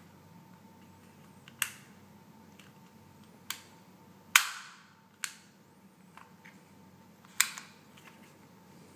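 KWA/Umarex H&K USP Compact gas blowback airsoft pistol making five sharp clacks spread over about six seconds. The loudest, about halfway, trails off in a short hiss.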